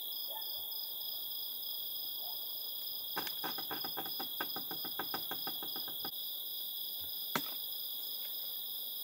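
Crickets chirping steadily in the night. About three seconds in, a run of quick, crisp clicks comes at several per second for about three seconds, and a single sharper click follows near the end.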